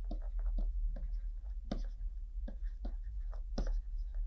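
Stylus tip tapping and scratching on a pen tablet while handwriting, heard as an irregular string of small clicks and ticks over a low steady hum.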